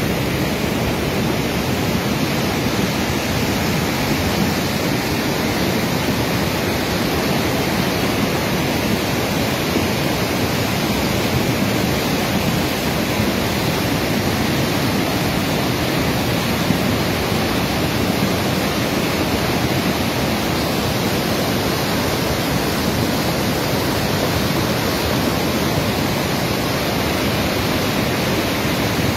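Steady rushing of a fast-flowing mountain stream in spate after heavy rain, an even, unbroken roar of water.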